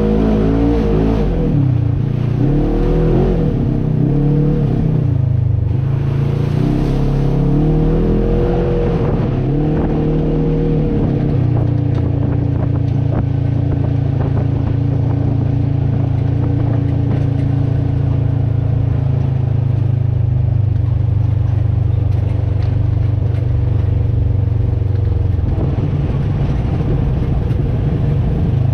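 Off-road vehicle engine driving, its pitch rising and falling with throttle and shifts for the first ten seconds or so, then settling to a steady drone.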